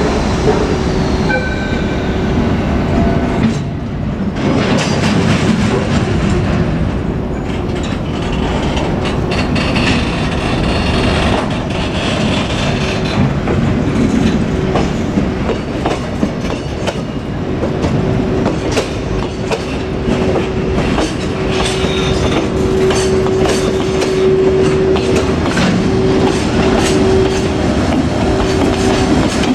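Freight train hauled by an EF81 electric locomotive passing close by, its wheels clattering over rail joints, with a steady tone running under the clatter.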